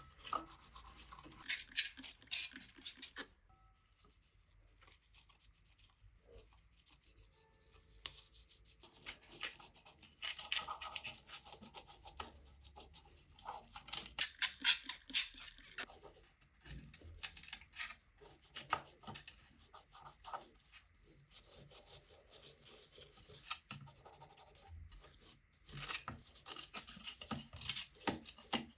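Hand scrubbing: irregular, repeated rubbing strokes of a brush or abrasive on a bicycle part, with a few light clicks in between.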